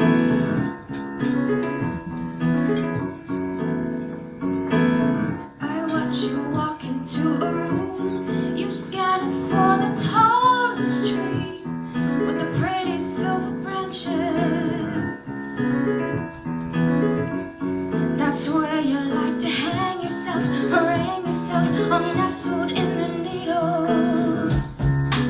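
A woman singing a song with piano accompaniment, her voice coming in about six seconds in after a piano introduction.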